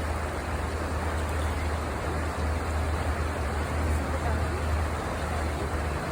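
Steady rushing of river rapids, with a constant low rumble underneath.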